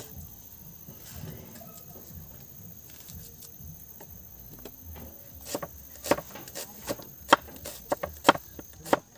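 A cleaver chopping onion on a thick wooden chopping board. About halfway through, sharp, irregular knocks begin, roughly a dozen strokes, and they get louder near the end.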